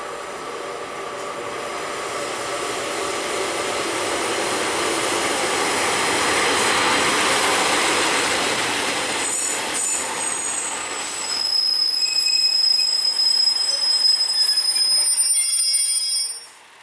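GWR diesel multiple unit, led by a Class 143 Pacer, running past the platform and growing louder as its coaches come close. A high steady squeal from the wheels starts about halfway through and holds until the sound cuts off just before the end.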